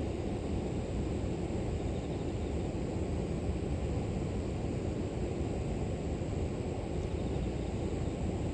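River water rushing steadily, a low, even rumble with no breaks. A faint, high, steady trill of grass insects sits above it.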